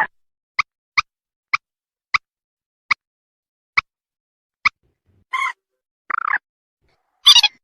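Recorded calls of a mandar rail (the bird locally called mandar sawah or mandar batu) played as a hunting lure. About eight short, sharp call notes come at uneven intervals, then near the end two or three longer, harsher calls.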